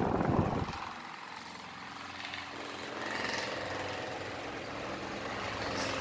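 Cadence Ventilar Eros Supreme table fan running at minimum speed. For the first second its airflow rushes loudly over the microphone held up to the grille, then a steady, quieter whir with a faint motor hum.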